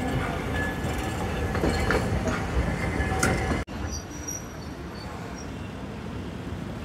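Hiroden streetcar running past close by on street track: a steady rumble of steel wheels on rail with a few sharp clicks over the joints. The sound cuts off abruptly about three and a half seconds in, and a quieter tram running slowly into the stop follows, with a couple of brief high wheel squeals.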